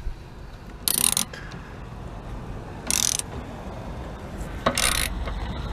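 Hand socket ratchet tightening a tow hook's mounting bolt: three short runs of ratchet clicking about two seconds apart as the handle is swung back and forth.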